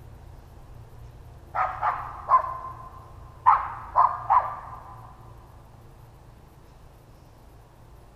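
Dog barking: six sharp barks in two quick sets of three, the second set about two seconds after the first.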